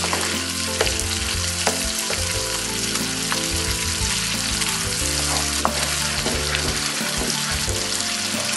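Foie gras sizzling in hot olive oil in a frying pan, a steady hiss, as a wooden spoon stirs and scrapes it around the pan with scattered light clicks.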